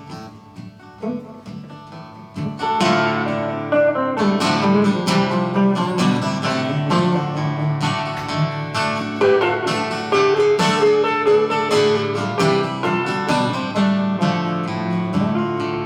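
Live acoustic guitar instrumental break: a soft, sparse passage, then picked guitar notes come in fuller and louder about two and a half seconds in and carry on steadily.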